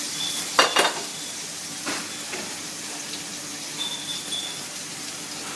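Tenderloin steak sizzling in butter and olive oil in a thick-bottomed pan, a steady frying hiss. Sharp clinks of a utensil against the pan cut in, loudest a little over half a second in and again near two seconds.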